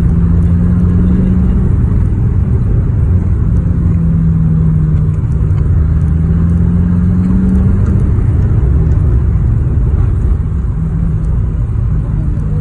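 Car engine and road rumble heard from inside a moving car. The engine's tone climbs slowly for several seconds, drops away about eight seconds in, and comes back near the end.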